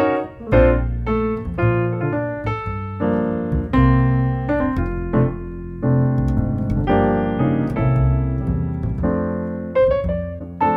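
Background music: piano or electric piano playing a steady run of notes.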